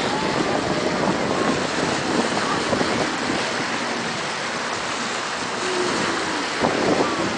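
Steady wind buffeting the microphone over the wash of open water, with a few faint distant voices calling out.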